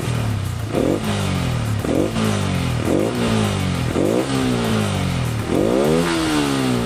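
Yamaha R15 V3's 155 cc single-cylinder engine being blipped about six times, each rev rising quickly and then falling back, with a longer rev near the end. The bike is in first gear with the clutch let out, spinning the rear wheel to test a newly fitted speed sensor.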